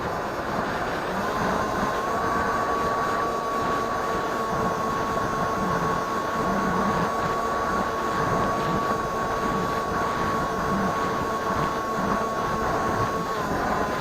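Electric motor and propeller of a Firebird Stratos RC plane whining at a steady pitch over loud wind rush, recorded by a keychain camera on the plane. The whine sets in about a second in, rises slightly, and cuts out just before the end, leaving the wind.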